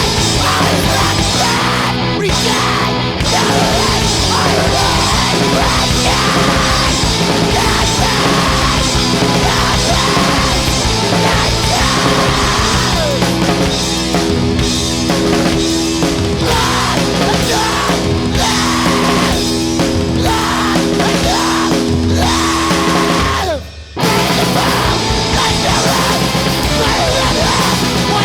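Loud, heavy rock music with distorted guitars, drums and shouted vocals. It cuts out for a moment shortly before the end, then comes straight back in.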